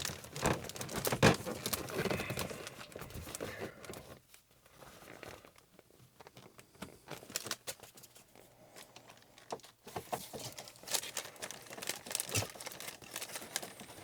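Sleeper curtain fabric rustling and crinkling as it is handled and fitted back into place, with scattered small clicks and knocks. The handling is busiest in the first few seconds, thins out in the middle, and picks up again near the end.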